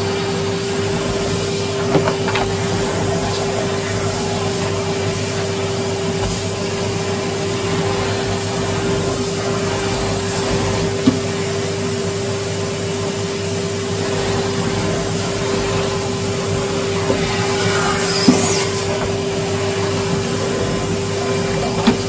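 Cylinder vacuum cleaner running steadily with a constant motor hum as its floor head is pushed over carpet and a rug, with a few short knocks along the way.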